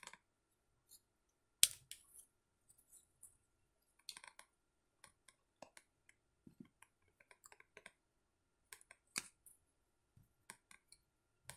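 Thin plastic crushable toy car being unfolded and pressed into shape by hand: faint, scattered plastic clicks and creaks, the sharpest about a second and a half in and again near nine seconds.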